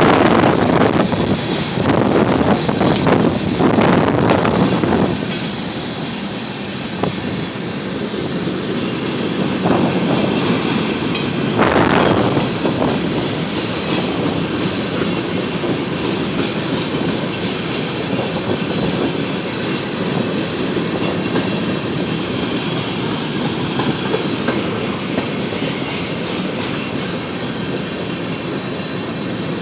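Empty freight cars of a unit train rolling past at restricted speed, wheels running over the rails. Wind gusts hit the microphone in the first few seconds.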